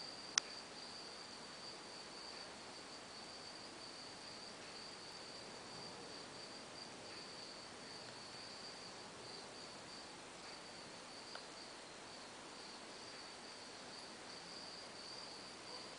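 A steady high-pitched insect trill that runs without a break, with one sharp click about half a second in.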